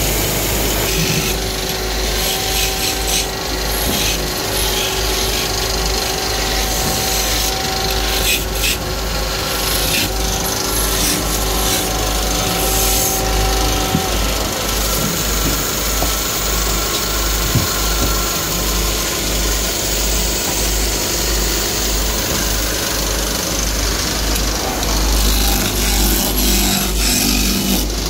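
Wood lathe turning a wooden blank while a hand-held chisel cuts into it: a continuous rasping scrape of steel on the spinning wood. Under it runs the belt-driven electric motor, whose steady hum stands out in the first half.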